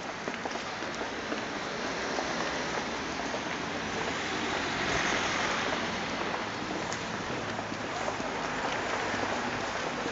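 Steady hiss of street traffic, swelling about halfway through.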